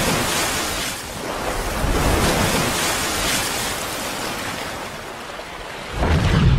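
Rushing-water splash sound effect for an animated water-splash logo, a noisy surge that swells and eases, with a deep boom about six seconds in.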